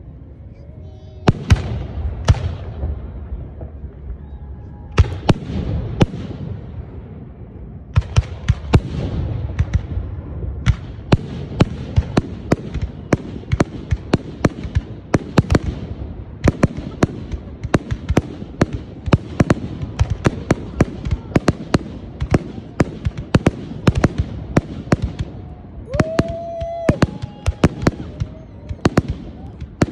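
Aerial fireworks shells bursting: a few separate bangs at first, then from about eight seconds in a rapid barrage of bangs, several each second.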